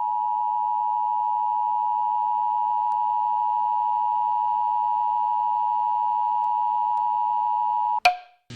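Emergency alert attention tone announcing a tornado warning: a single steady, loud beep held for about eight seconds, cutting off abruptly with a click.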